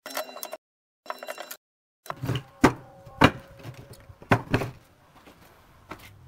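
A steel chisel cutting and scraping a groove in a wooden board, in two short bursts with a ringing squeal, each cut off sharply. Then a string of sharp knocks and thuds as the board is shifted and set down on a wooden tabletop.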